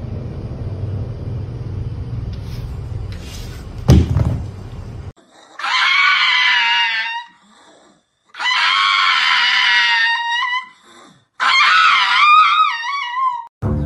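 Pug howling: three long, high, drawn-out calls with short gaps between them, each wavering in pitch near its end. Before the howls there is a few seconds of low rumbling noise with one sharp thump, the loudest sound, about four seconds in.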